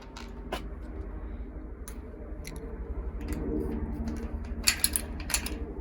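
Deadbolt hardware being handled and fitted into a door: scattered light clicks and scraping of small metal parts, with two sharper clicks near the end, over a steady low hum.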